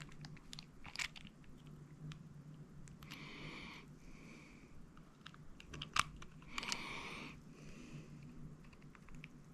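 Hand ratchet being worked, its fine-toothed pawl clicking in short raspy runs of under a second, with scattered small clicks and taps from handling the tool.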